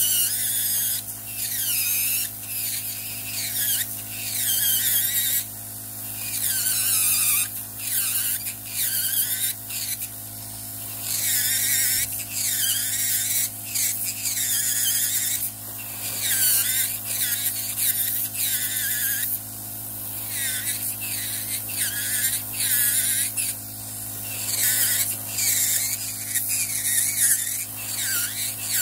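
Podiatry nail drill with a rotary burr grinding down a thick fungal toenail. A steady motor hum runs underneath a high whine that comes and goes in short repeated spells and wavers in pitch as the burr presses on the nail and lifts off.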